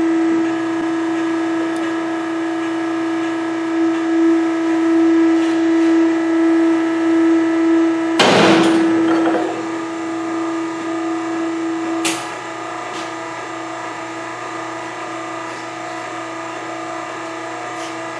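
Pull-test machine running with a steady hum as it loads a pipe clamp towards the point where the clamp slides. A loud, short burst of noise comes about eight seconds in, and the hum drops slightly in level about twelve seconds in.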